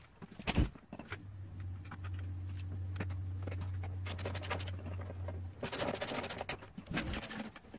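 Workshop handling sounds from reassembling a dirt bike: a sharp knock, then a steady low hum for about four seconds, then clattering and scraping of parts and tools near the end.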